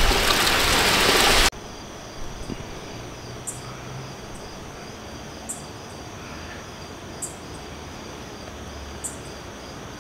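Steady rain falling, cut off abruptly about a second and a half in. After it, quieter night insects trill steadily, with a short high chirp about every two seconds.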